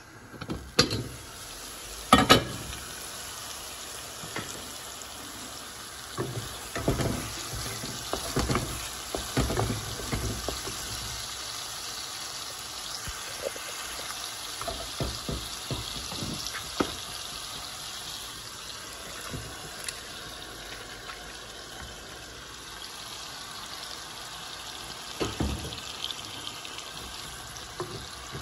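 Onion-and-spice masala sizzling in an aluminium pot. There is a loud metal clank about two seconds in as the pot lid comes off, and a wooden spatula scrapes and knocks against the pot as it stirs.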